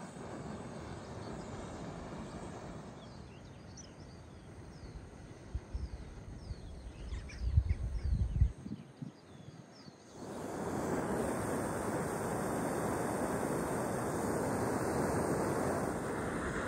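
Wind buffeting the microphone in gusts, with small birds chirping. About ten seconds in, a steady hiss starts suddenly: a gas canister camping stove burning under a pot.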